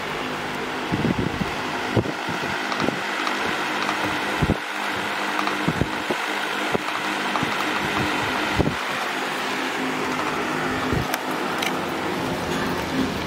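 Steady mechanical hum with a hiss over it, with scattered light clicks and knocks.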